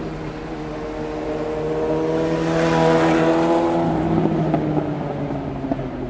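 A motor vehicle passing close by in street traffic: its engine note swells to a peak about three seconds in, with a rush of road noise as it goes past, then fades away a little lower in pitch.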